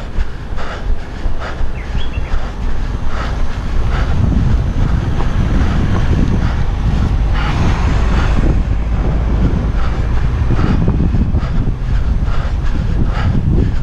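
Running footfalls on pavement, about two a second, over a steady rumble of wind buffeting a body-worn camera's microphone. The rumble grows heavier a few seconds in.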